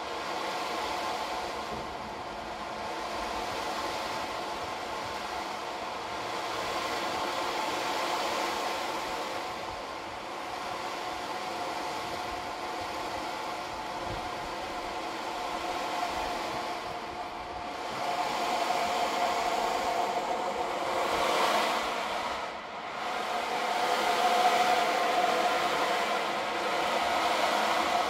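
Hide frame drum with its skin rubbed by hand instead of struck: a continuous droning hum with a faint ringing tone. It grows louder about two-thirds of the way through.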